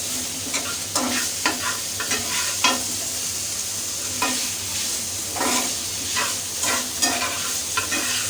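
Tomato frying with onion and egg in oil over high heat: a steady sizzle, with a spatula stirring and scraping against the pan at irregular moments.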